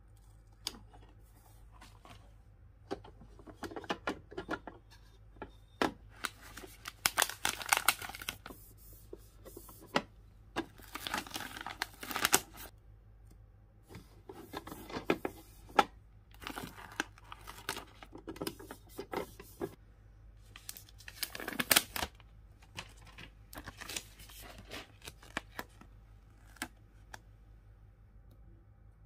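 Sticker backing and protective plastic film being peeled from a plastic toy make-up suitcase, in a run of short ripping peels. Three longer peels fall about a third of the way in, near the middle, and about three-quarters in, with light taps and clicks of hands on the hard plastic case between them.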